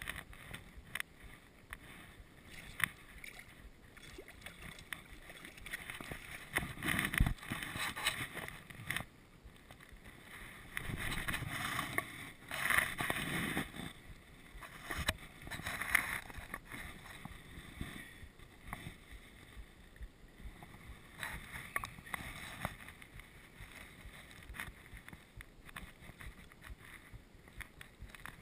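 Shallow water sloshing and splashing, with boots scuffing and squelching on wet rock and mud, in irregular bursts.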